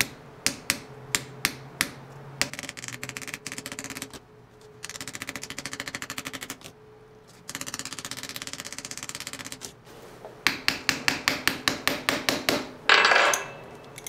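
Small hammer tapping on the thin aluminium case of a TEC-Lite indicator to peen flat the crimp that holds its phenolic back: a few separate taps, then long runs of quick light tapping and a faster run of louder taps. Near the end comes a louder scraping noise about a second long.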